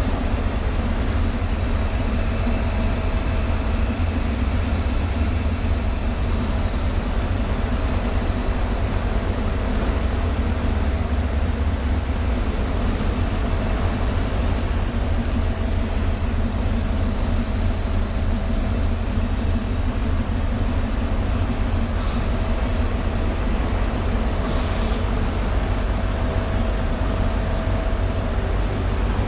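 1929 Ford Model A's engine running steadily at low speed as the car creeps in and sits, a continuous deep rumble with no change in pace.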